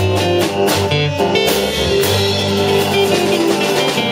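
Blues band playing the instrumental close of a song, led by guitar over a bass line; a chord struck about two seconds in rings on.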